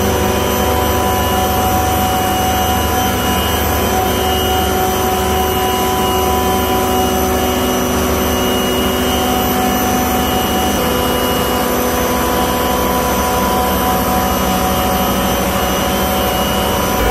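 Bitzer OSNA-7471-K ammonia screw compressor and its drive motor running: a steady, loud machine drone with several steady whining tones. The mix of tones shifts slightly about eleven seconds in.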